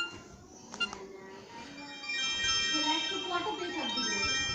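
Samsung SM-B310E feature phone playing one of its preset ringtones through its small speaker: an electronic melody of steady high notes that starts about two seconds in, after a single click.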